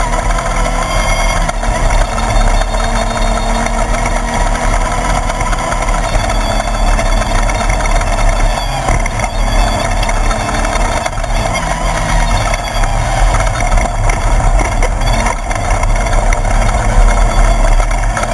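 Class 1/2-1600 desert race buggy running steadily at speed: its air-cooled 1600 cc VW engine under a loud, even rush of driving noise.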